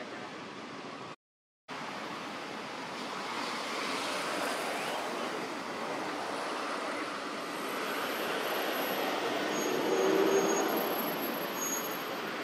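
Steady rushing outdoor background noise, like distant traffic or wind, with the sound cutting out completely for about half a second a little over a second in.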